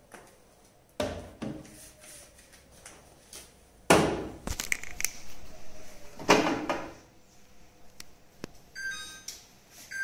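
Glass jars and plastic containers being set down and moved about on refrigerator shelves and door bins: a handful of separate knocks and clunks, the loudest about four seconds in.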